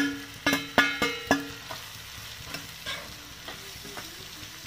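A metal spoon clanks against a frying pan about five times in the first second and a half, each knock ringing briefly. Then comes quieter stirring through thick masala with a light sizzle of frying.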